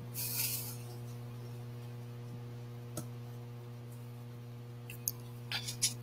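Steady low electrical hum on the microphone, with a short hiss just after the start, a single click about three seconds in and a quick cluster of clicks near the end.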